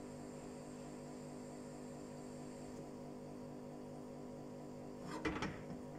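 A steady hum made of several even tones, with a brief clatter of a few knocks about five seconds in.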